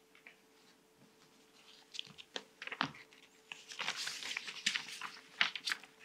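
Sheets of paper rustling and crinkling, with small clicks and knocks, as papers are handled and arranged at a lectern microphone. The sound starts about two seconds in and is busiest around the middle. A faint steady hum lies underneath.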